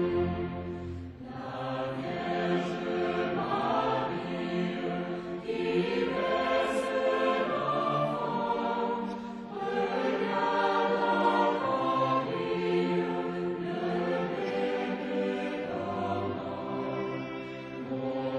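Mixed choir singing a slow, sustained carol with a string orchestra accompanying, in phrases separated by brief pauses for breath.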